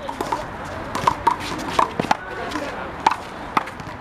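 One-wall handball rally: a rubber handball being slapped by bare hands and smacking off the wall and the court pavement in a quick, irregular series of sharp hits.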